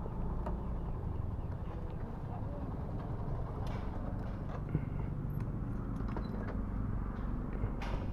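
Motor vehicle engine running steadily with a low rumble, with a few faint clicks and a light knock.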